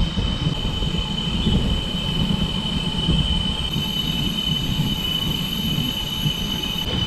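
Cicadas singing in a steady, high, continuous drone. A second, even shriller cicada chorus joins about halfway through and stops just before the end, all over a constant low rumble.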